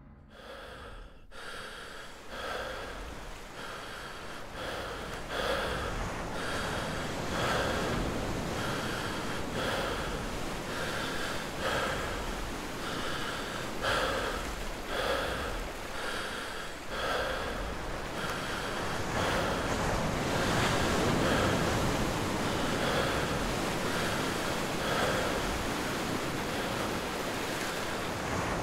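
A runner's heavy, rhythmic breathing, about one breath a second, over a steady wash of noise like surf; the breaths grow fainter near the end.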